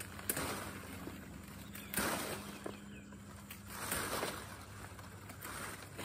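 Cacao tree leaves and branches rustling in swells as the tree is pruned by hand, with a few sharp snaps.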